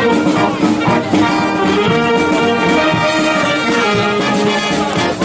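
Brass band playing a tune live, many brass instruments sounding chords together at a steady, loud level.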